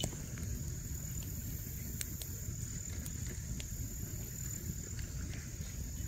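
Wood campfire crackling with a few sharp pops, over a low steady rumble and a thin, steady high-pitched whine.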